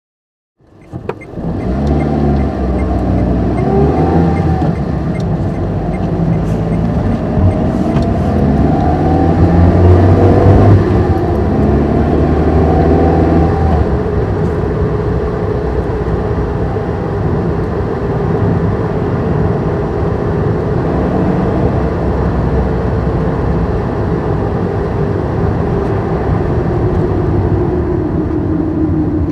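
Car interior while driving: engine and road noise fading in at the start, the engine's pitch rising and falling several times over the first half, then settling into a steady cruising drone that eases down slightly near the end.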